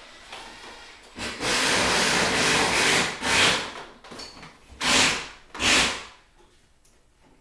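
Hard scraping and rubbing noise: one long stretch of nearly two seconds starting about a second in, then three short strokes.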